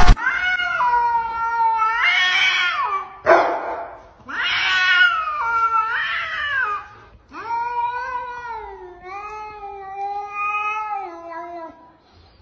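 Cats yowling at each other as they square up: a series of long, drawn-out calls that waver up and down in pitch, the last one about four seconds long. These are threat calls before a fight.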